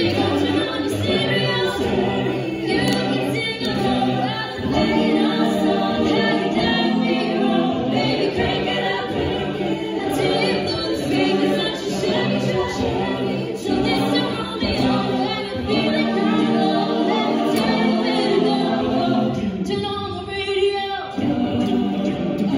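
Mixed-voice a cappella choir singing into handheld microphones, backing voices holding chords under the lead.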